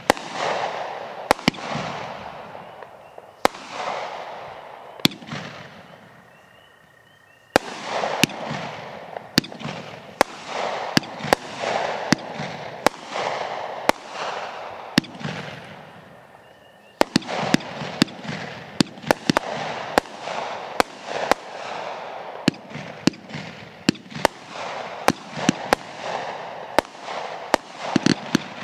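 King of Brocades multi-shot firework cake firing an uneven, rapid string of shots, each sharp bang trailed by a fading hiss. The firing dies away twice, around six and sixteen seconds in, and then picks up again with a loud crack.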